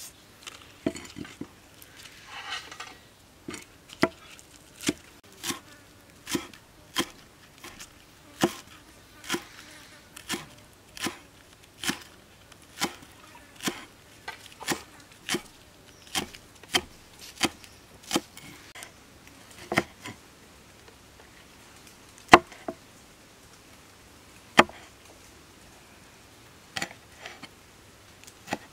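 Large knife chopping scallions and then red chilies on a wooden chopping board: sharp, even chops a little under one a second, thinning to a few spaced strikes near the end.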